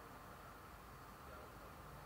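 Near silence: the faint, steady hum of a city at night, distant traffic blending into an even background with nothing standing out.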